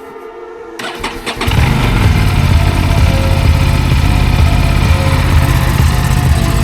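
Aprilia RS 457's parallel-twin engine starting: a few short clicks of cranking about a second in, then it catches and settles into a steady idle.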